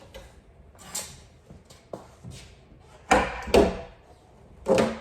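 Several short clunks and knocks as a car's rear spoiler is tugged loose from the trunk lid against its hidden retaining clips. One lighter knock comes about a second in, and three louder ones come in the second half.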